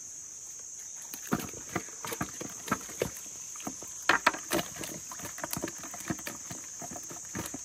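A steady high insect trill runs throughout. Over it come irregular splashes and knocks in shallow muddy water, heaviest around four seconds in, as the pond is worked by hand for fish.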